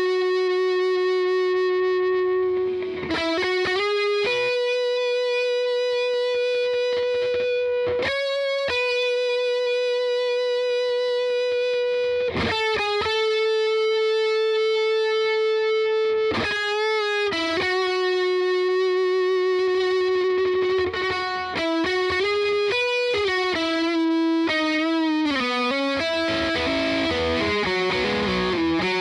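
Fender Telecaster Thinline electric guitar played through a Keeley four-knob compressor with its sustain turned up, and with overdrive. It plays a lead line of long held notes, each ringing on for several seconds, with string bends and vibrato.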